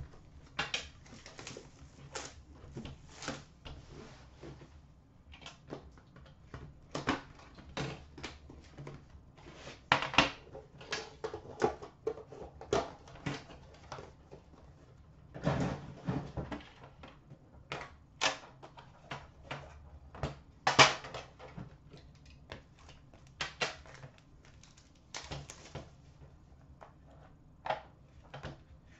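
Hands opening a sealed trading-card box and the metal tin inside it: a small knife cutting the wrap, then irregular clicks, taps and scrapes of cardboard and metal being handled, with a few louder knocks.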